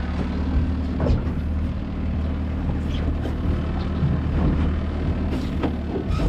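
Boat engine running steadily at trolling speed, a low even hum, with a few short clicks and knocks about a second in and again near the end.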